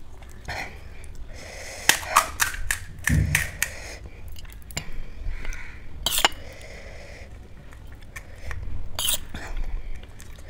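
Crisp, hollow panipuri shells cracked open by hand, and a metal spoon clinking and scraping in a bowl as spicy filling is scooped into a shell. The sound is a scatter of sharp clicks and taps, with a dull thump about three seconds in.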